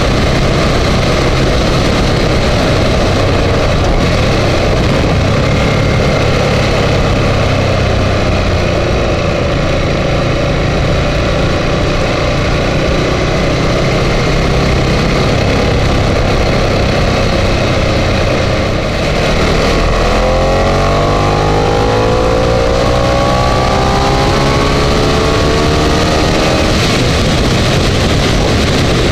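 Ducati Multistrada 1200 S L-twin engine running at road speed under a steady rush of wind and road noise. About two-thirds through the sound dips briefly, then the engine's pitch climbs steadily as the bike accelerates.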